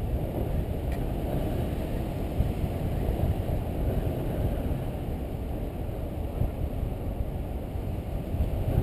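Wind buffeting the action camera's microphone in flight under a tandem paraglider: a steady, low rushing noise.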